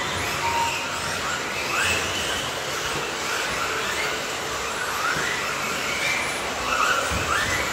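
Several radio-controlled electric buggies racing, with overlapping high motor whines that rise in pitch again and again as the cars accelerate, over a steady rush of noise. A short electronic beep sounds about half a second in.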